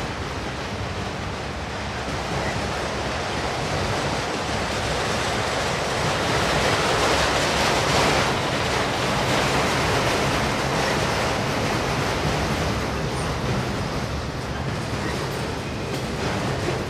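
A long string of autorack freight cars rolling past on the rails: a steady noise of steel wheels on track, louder in the middle.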